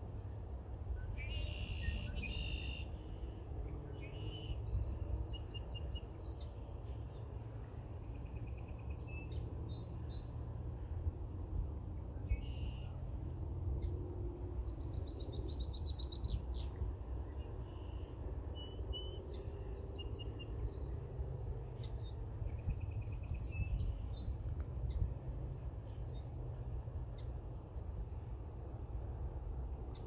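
Outdoor nature ambience: an insect, cricket-like, chirps steadily in an even high pulse, while songbirds give scattered whistles and short trills, over a constant low rumble.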